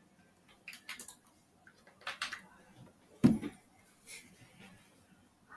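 A few short, faint clicks and rustles, and one louder thump about three seconds in.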